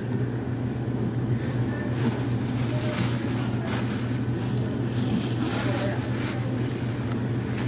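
Supermarket ambience: a steady low hum, with faint voices of shoppers in the background.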